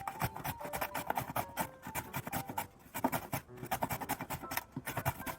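Burdock root being cut into thin matchsticks: rapid, regular cutting strokes, many each second, with light background music underneath.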